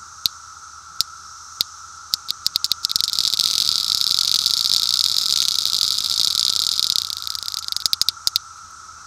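Small tin clicker toy pressed by hand, imitating the buckling of a cicada's tymbals. A few single clicks come first, then faster and faster clicks that blur into a continuous buzz for about five seconds, then slow back to separate clicks near the end.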